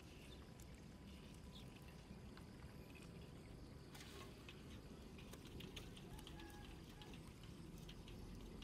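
Faint outdoor ambience with a low rumble. From about four seconds in, a scatter of light ticks and patter as the wet mesh net trap is lifted and handled in shallow floodwater.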